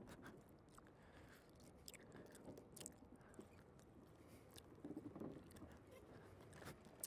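Near silence, with faint scattered clicks and crackles over a low hum.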